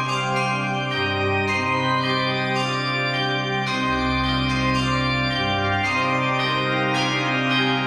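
Organ music: sustained chords held over a slowly moving bass line, the bass changing note every second or two.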